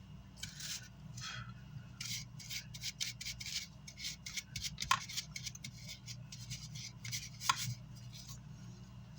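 Repeated short scrubbing strokes of a brush cleaning an amplifier's circuit board. There is a sharp click about five seconds in and another at about seven and a half seconds, with a steady low hum underneath.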